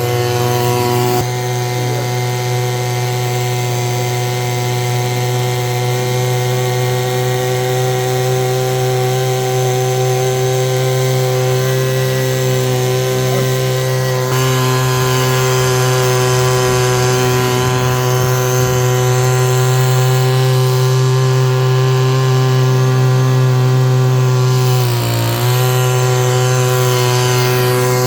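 A steady machine drone: a strong low hum with many even overtones, holding one pitch, dipping briefly about 25 seconds in.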